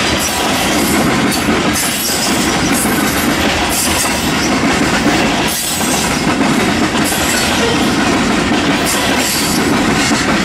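Covered hopper cars of a Union Pacific manifest freight train rolling past close by at steady speed: a loud, steady rumble and clatter of steel wheels on the rails.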